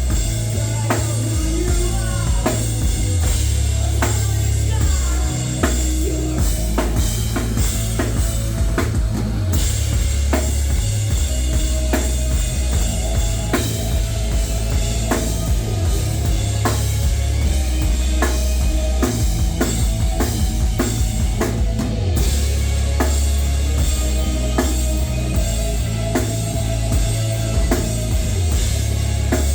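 Live rock band playing loud, with a driving drum kit (kick and snare hits), heavy bass and electric guitar.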